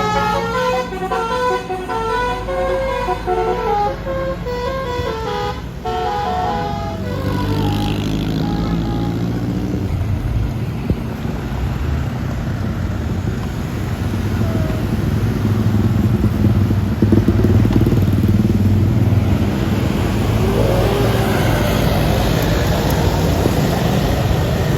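A tour bus's basuri musical horn plays a tune of quick stepped notes over the bus's running engine, ending about seven seconds in. The bus engine then carries on loudly, its pitch rising as the bus drives past.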